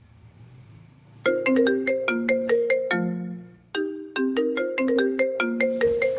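Phone alarm ringtone going off: a quick tune of struck notes that starts about a second in, breaks off briefly, then starts over. It is a wake-up alarm, called noisy.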